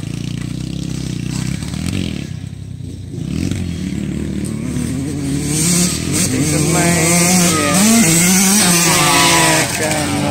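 Dirt bike engines running on a motocross track. From about six seconds in, one bike comes close and gets louder, its engine revving up and down repeatedly.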